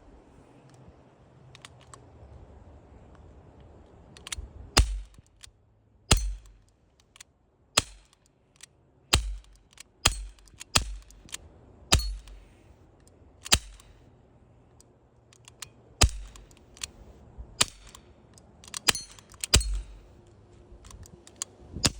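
Glock BB pistol firing single shots, about a dozen sharp pops spaced one to two seconds apart, starting about five seconds in.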